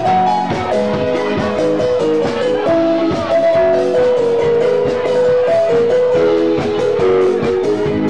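Live band playing an instrumental passage: a stepping lead melody with chords on keyboard, over a steady drum-kit beat.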